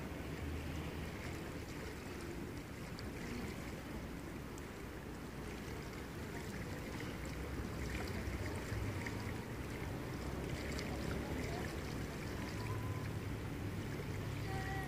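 Steady rush of a river flowing past a grassy bank, an even wash of water noise with a low rumble underneath.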